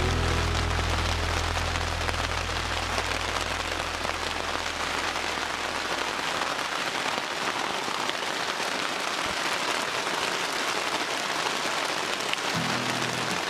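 Heavy rain drumming on polythene tunnel sheeting, a dense, steady hiss of drops. A low steady tone underneath fades away over the first few seconds and comes back briefly near the end.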